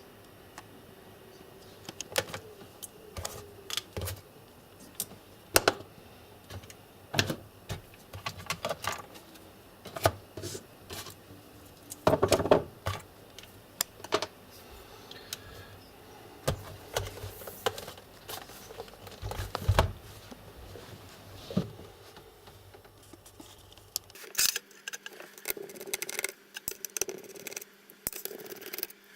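Irregular clicks, taps and short clattery rattles of small plastic and metal parts and tools being handled as a Lenovo IdeaPad 700 laptop is worked on.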